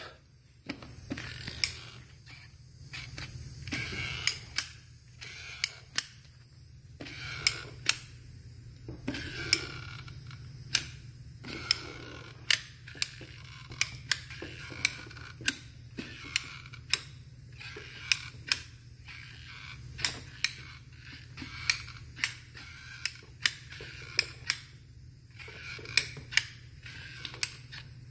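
Manual caulking gun being squeezed over and over as it pushes construction adhesive out of the tube. Each pull of the trigger gives a sharp click, about one a second, with creaking from the gun between strokes.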